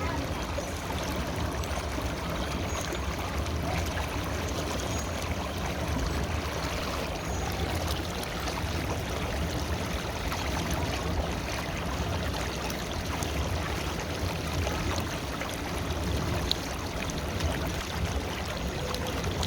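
River water flowing and babbling steadily over stones.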